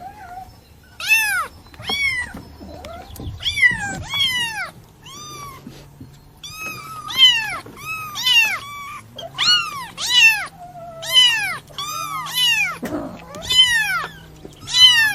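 A kitten mewing over and over. It gives a quick series of short, high-pitched mews, each rising and then falling in pitch, about one or two a second, with a brief pause about five seconds in.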